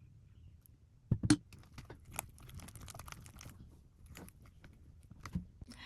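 Glue-and-borax slime being stirred as it thickens and binds: sticky, crackly squelching with scattered clicks and one louder knock about a second in.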